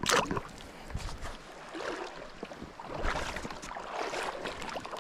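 Water splashing and sloshing in irregular bursts, the loudest right at the start, as a person wades in a river.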